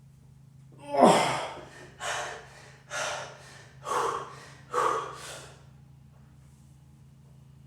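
A person breathing hard from the exertion of heavy deadlifting: five loud, forced breaths about a second apart, the first the loudest and voiced. The breathing stops about two seconds before the end.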